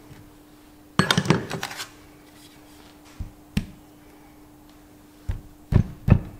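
A clatter of metal tools on a workbench about a second in, two single knocks, then from about five seconds in a steady run of hammer taps, about three a second, on the split pin in a Massey Ferguson 135 front wheel hub, straightening it so it can be pulled out. A faint steady hum runs underneath.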